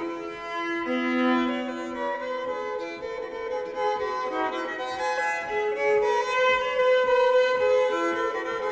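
Solo Hardanger fiddle playing a folk tune, with several notes sounding together over its drone strings.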